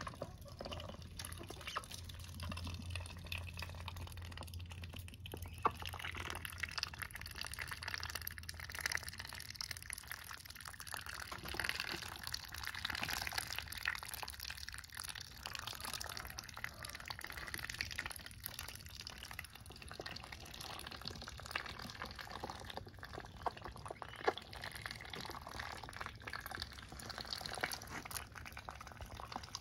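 Call ducks dabbling with their bills in a tub of water and chopped greens: a continuous patter of small wet splashes and bill clicks. A low hum sits underneath for the first several seconds.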